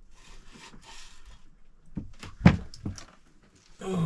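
A few short knocks and clinks of metal parts being handled, the sharpest about two and a half seconds in, as the tube bundle of a marine diesel's heat exchanger is slid out of its housing.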